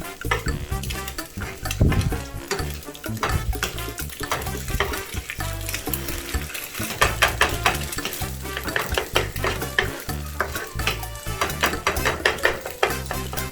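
Egg fried rice sizzling in a hot pan while a spatula stirs it, scraping and tapping against the pan many times in quick succession.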